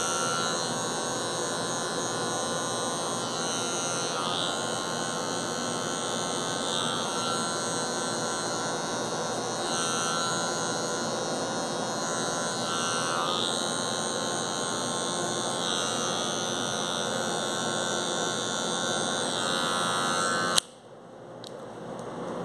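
Electric hair clipper running with a steady buzz, its tone shifting every few seconds as it is worked through the hair in a fade. About twenty seconds in it is switched off with a sharp click and the buzz stops.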